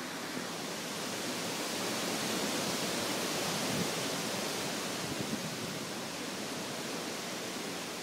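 Hurricane wind blowing through trees: a steady rushing noise that swells a little a few seconds in.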